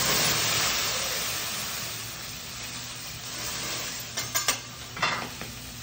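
Liquid squirted from a squeeze bottle onto a hot teppanyaki griddle sizzling loudly as it flares up in flame, the hiss starting suddenly and dying away over a few seconds. A few sharp clicks come near the end.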